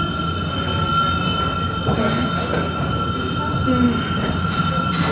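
Cable-hauled funicular car of the Lookout Mountain Incline Railway running up its steep track: a steady rumble with a constant high whine over it.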